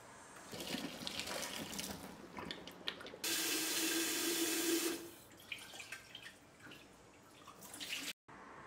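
Hot vinegar water poured from a glass electric kettle splashing into a kitchen sink drain. About three seconds in, the kitchen faucet runs into the open kettle for nearly two seconds, a louder steady rush. Then come smaller splashes and knocks as the kettle is rinsed.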